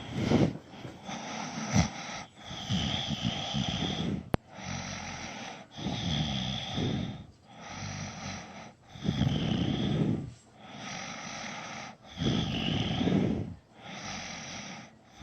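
A man snoring in deep sleep: a steady rhythm of breaths, alternating a louder snore with a faint whistle in it and a softer breath, one full breath about every three seconds.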